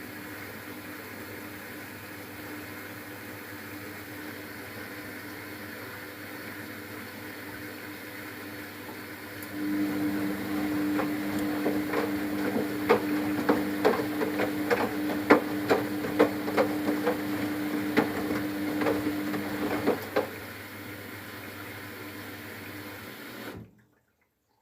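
Luxor WM 1042 washing machine in its rinse cycle: water runs steadily, then about ten seconds in a motor starts humming, with repeated splashing knocks, for about ten seconds before it stops. The sound cuts off suddenly near the end.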